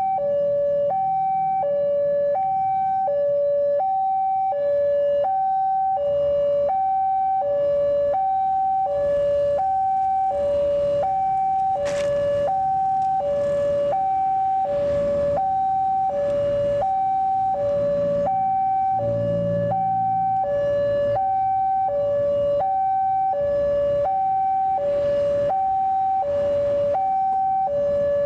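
Railway level-crossing warning alarm sounding its electronic two-tone signal, a high and a low note alternating about every half second, which warns that a train is approaching.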